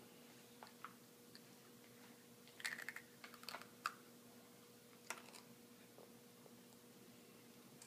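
Faint scattered clicks and taps from a toddler eating at a plastic high-chair tray, over a low steady hum. The clicks come in a short cluster about three seconds in, with a single one near five seconds.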